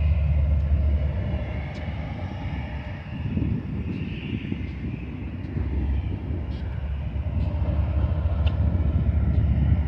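Steady low rumble of BNSF diesel-electric locomotives rolling light through the rail yard, with a few faint clicks.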